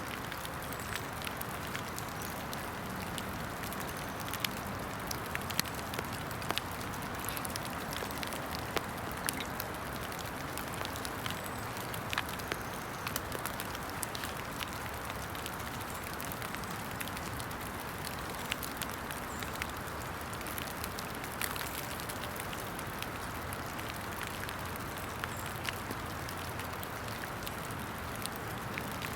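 Steady rain falling, an even hiss with scattered irregular ticks of drops.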